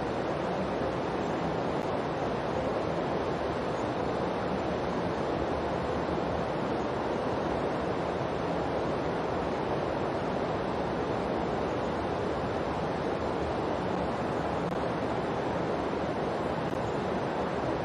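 Steady rushing noise with an even level and no rise and fall, the masking sound bed of a subliminal affirmation track.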